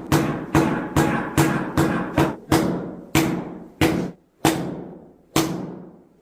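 A series of about eleven hard strikes, each with a short ringing tail. They come quickly at first, two to three a second, then slow to about one a second near the end.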